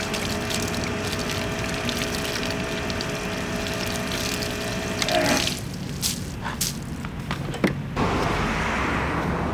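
Water spraying and splashing in a steady hiss, which breaks off about five seconds in, with a few sharp knocks, and starts again about eight seconds in.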